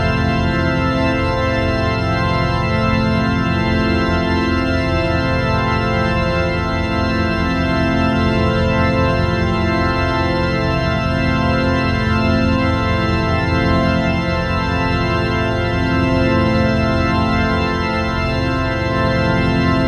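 Sustained organ-like chord sound effect, many notes held together without a break, with a rapid flutter in the low notes.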